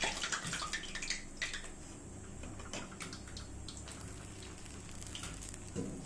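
Water splashing and dripping in a steel bowl as fried urad dal vadas are dropped in to soak, with many small splashes in the first second or so that thin out to scattered drips.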